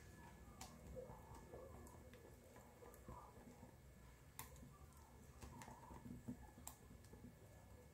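Faint hand-whisking of thick batter in a glass bowl: soft squelching with a few light clicks of the whisk against the glass, about one every second or so.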